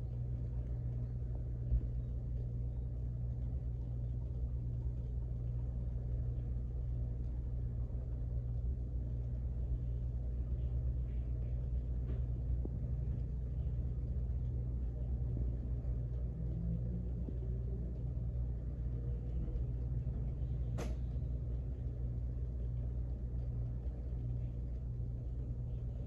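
Ceiling fan running at a steady speed, giving a steady low hum. One sharp click about three-quarters of the way through.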